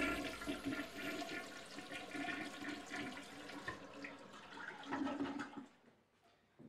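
Rushing, draining water that fades and stops about five and a half seconds in.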